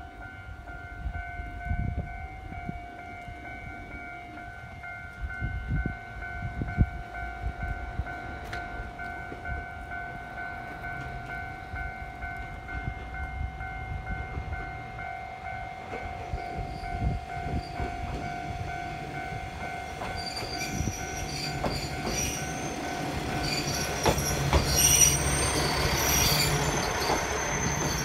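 Kishu Railway diesel railcar approaching, its running noise growing louder over the last several seconds, with the wheels squealing near the end. A steady high tone runs beneath until about 22 seconds in.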